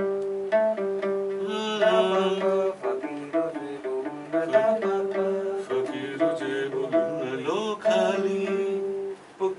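Acoustic guitar picking a repeating melody, with a man's voice singing along. The voice slides upward about three-quarters of the way through.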